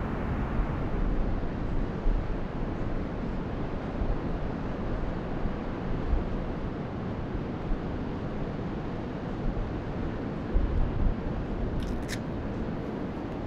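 Steady rush of ocean surf and wind, with low wind rumbles on the microphone now and then. A few faint clicks near the end.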